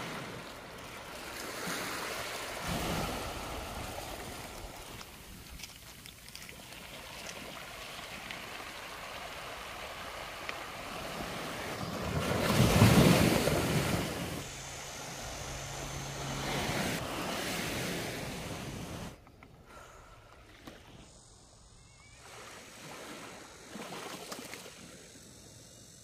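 Small waves washing in over a pebble beach. The surf swells to its loudest about halfway through, then eases off and is quieter near the end.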